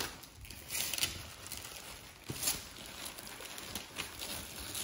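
Gift wrapping paper rustling and crinkling in a few short bursts as a present is unwrapped.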